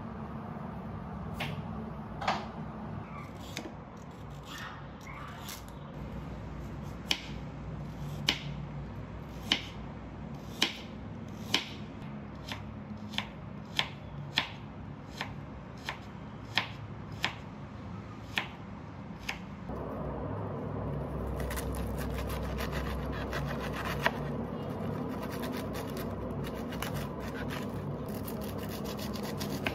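Kitchen knife cutting carrot into strips on a bamboo cutting board, sharp taps about once a second. About two-thirds of the way in it gives way to a denser, continuous crisp crunching as a knife cuts through a head of cabbage.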